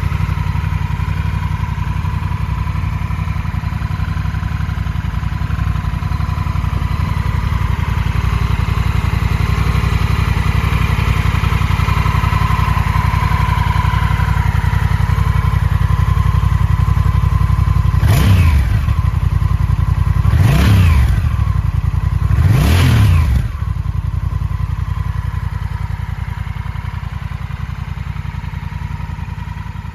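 Honda Rebel 1100 DCT's parallel-twin engine idling steadily, with three short throttle blips in quick succession past the middle, each revving up and dropping straight back to idle.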